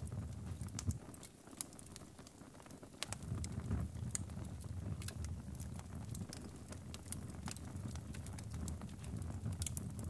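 Wood fire burning in a fireplace: a low steady rumble of flames with scattered sharp crackles and pops. The low rumble drops back briefly between about one and three seconds in, while the crackling goes on.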